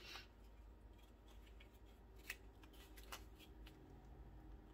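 Faint scattered clicks and light rustling from hands handling a sewn garment and its buttons, the clearest clicks about two and three seconds in.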